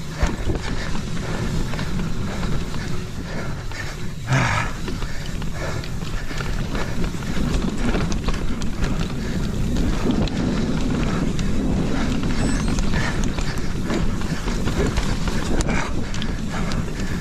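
Mountain bike descending a dirt trail at speed: tyres rolling and the bike rattling over rough ground, wind buffeting the camera microphone, and the rider's heavy panting breathing.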